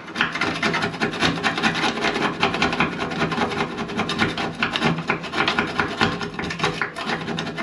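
Hand file rasping against a metal flange under a car fender in rapid, continuous back-and-forth strokes, scraping off old paint and surface rust where a wire brush could not reach.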